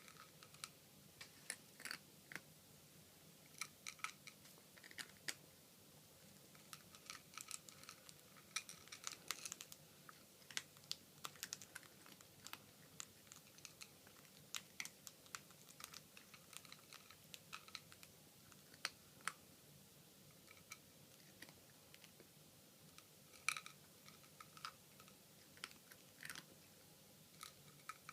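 A cat and a pet bird eating dry cat food: faint, irregular crunching and sharp little clicks of kibble being chewed and pecked, sometimes several in quick succession.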